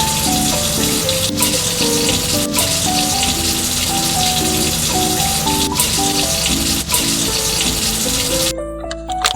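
Background music with a simple stepping melody, over a steady rush of running water like a tap, which cuts off suddenly near the end.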